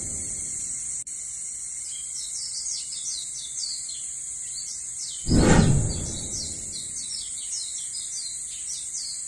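Birds chirping repeatedly over a steady high, insect-like hiss, with one heavy thud about five seconds in.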